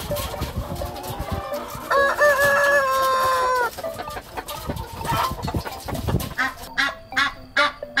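Domestic chickens clucking, with a rooster crowing once: a loud, long call of nearly two seconds about two seconds in. Near the end, a run of short, evenly spaced calls begins.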